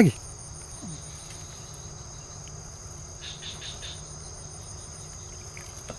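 Chorus of night insects trilling: a steady high whine with a faster pulsing trill above it, with a few faint soft ticks about three seconds in.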